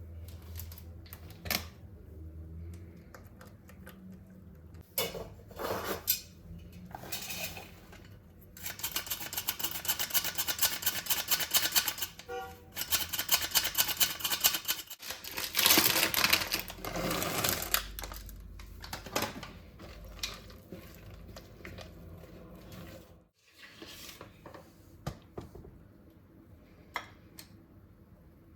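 Close-up handling noises of small objects: scattered clicks and taps, with a stretch of dense, rapid clicking and rattling in the middle.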